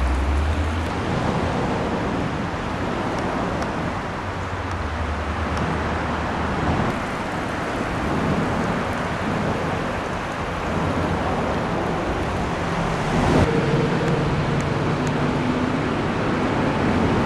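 Steady outdoor noise with a low rumble and no clear separate events. A single sharp knock sounds about thirteen seconds in.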